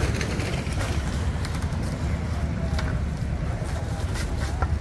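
Engine of the crane holding the load running with a steady low rumble, with a few sharp crackles of plastic stretch wrap being pulled off the roll.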